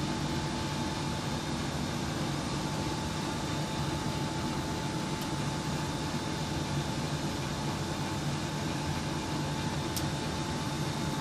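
Steady mechanical hum and hiss with a faint constant high whine, unchanging throughout.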